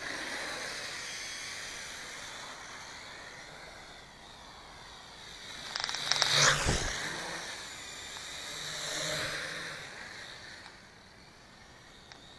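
Motors and propellers of a large toy quadcopter in flight, a whine whose pitch glides up and down as it maneuvers. It gets loudest about halfway through, and swells again a little later.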